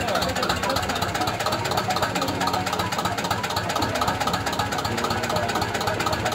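Restored Zetor 25A tractor's two-cylinder diesel engine idling steadily.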